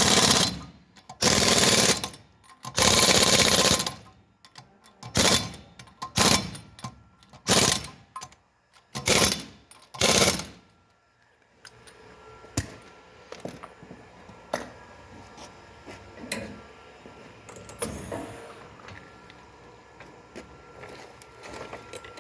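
Impact wrench hammering wheel nuts tight in repeated short bursts, about eight in the first ten seconds, the first few longer than the rest. After that only scattered clicks and knocks of tools being handled.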